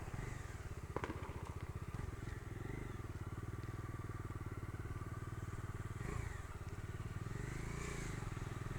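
Bajaj Dominar 250's single-cylinder engine running steadily at a low cruising pace, with an even pulsing beat, heard from the pillion seat. A single sharp click about a second in.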